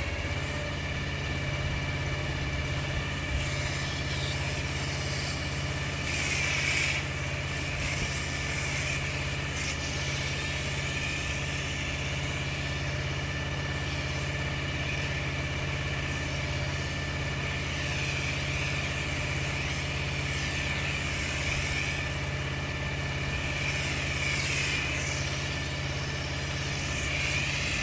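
Pressure washer's engine running steadily, with a hiss that swells and fades several times.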